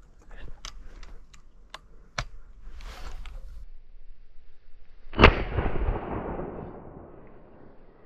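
A single shotgun shot about five seconds in, fired at thrushes, with a long echo dying away over about two seconds. Before it, light scattered clicks and rustling.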